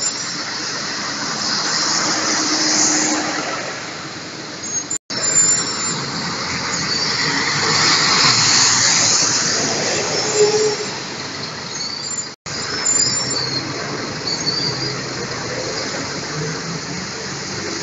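Steady ride noise from inside a moving bus: engine, tyres and rattles under a loud hiss, with a faint squeal here and there. The sound drops out for an instant twice.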